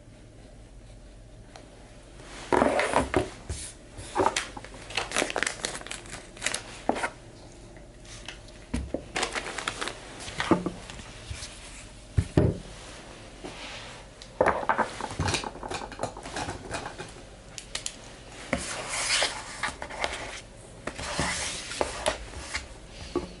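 Hands handling gift packaging on a tabletop: irregular rustling of paper and cloth with light knocks and clicks. These begin about two and a half seconds in.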